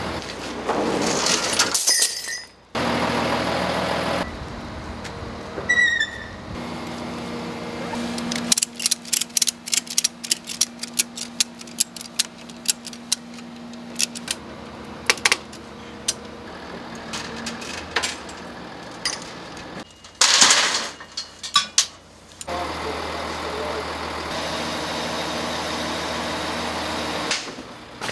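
Truck engine running, then a ratchet strap being cranked tight around the load, a long run of quick, uneven clicks lasting several seconds.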